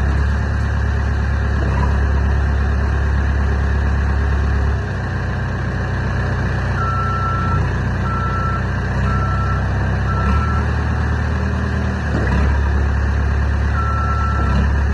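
Diesel engine of a 2008 Caterpillar heavy machine running, its low note changing with load a few times. Its reversing alarm beeps four times from about halfway, then again near the end.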